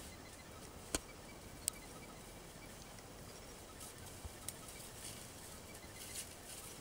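Quiet outdoor ambience, a faint steady hiss, broken by two sharp clicks about a second apart near the start and a few fainter ticks later.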